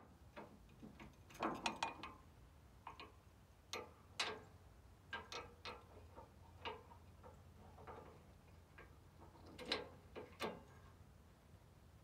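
Irregular metallic clicks and clanks of the steel rear jack leg on a Wood-Mizer LT15 sawmill trailer being worked and lowered by hand, with a few louder knocks among them.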